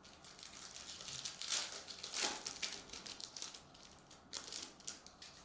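Foil trading-card pack wrapper crinkling as it is handled and torn open by hand, in a run of irregular rustles, loudest about two seconds in, with another burst near the end.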